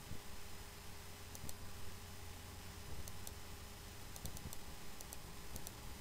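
Faint computer mouse clicks, several in quick pairs, as drop-down menu items are opened and picked, over a low steady hum.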